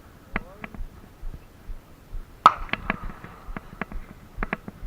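Handgun shots: one sharp, loud shot about two and a half seconds in, among many fainter, quicker shots spread throughout.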